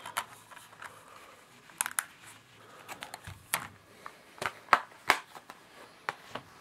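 Plastic DVD cases being handled: a series of irregular clicks and taps, the sharpest about five seconds in.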